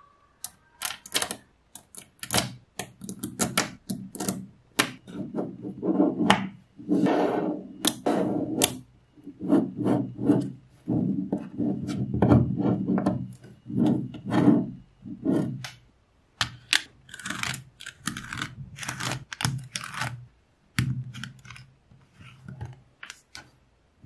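Small neodymium magnet balls clicking and snapping together as fingers press them into rows, with rubbing and rolling of the balls against each other and the tabletop. The clicks come fast and irregular, with a few short pauses.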